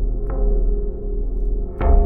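Dark ambient music: a deep, steady drone with held tones. Two struck hits ring out over it, a small one just after the start and a louder one near the end.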